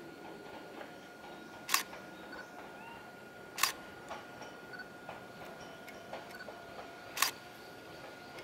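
Sharp clicks, four of them about two to three seconds apart, each ringing on briefly, over a faint steady high hum and low ambient noise.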